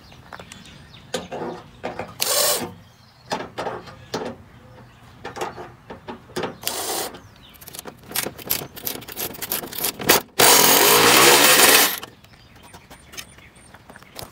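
Cordless driver running in short bursts as it spins out body screws, with a longer run of about a second and a half near the end, among clicks and knocks of metal parts being handled.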